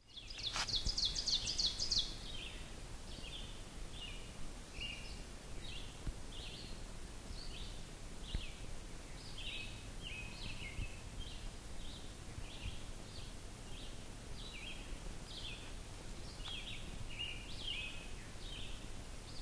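Birds chirping in woodland: short high notes repeating about twice a second, with a quick run of rapid notes in the first two seconds. A faint steady low hum lies underneath.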